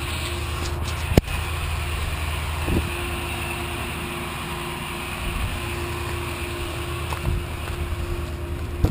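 A steady low mechanical rumble with a faint steady hum over it, like an engine running, and one sharp crack about a second in.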